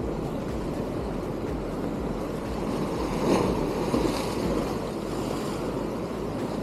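Sea waves washing against the rocks of a jetty, a steady rush that swells briefly about three and four seconds in, with wind buffeting the microphone.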